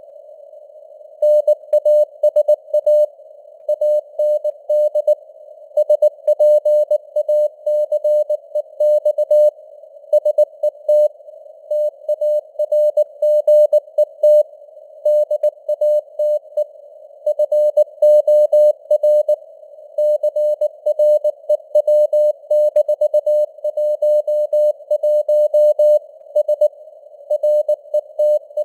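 Morse code at about 19 words per minute: a single steady-pitched tone keyed on and off in dots and dashes. It sits in a narrow band of simulated radio hiss, and its strength rises and falls with simulated fading (QSB).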